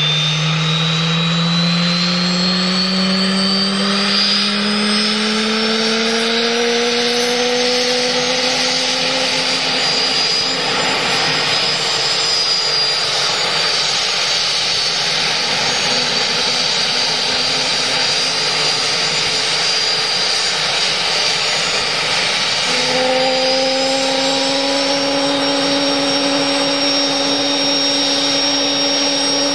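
Aircraft turbine engine whining over a steady rush, its pitch rising slowly for about ten seconds as it spools up, then running steadily. About 23 seconds in the whine jumps abruptly to a slightly higher pitch.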